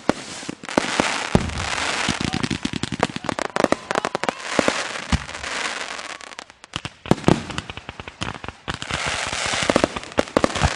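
Fireworks going off in rapid succession: many sharp bangs and reports, with two long stretches of dense crackling, one starting about a second in and one near the end.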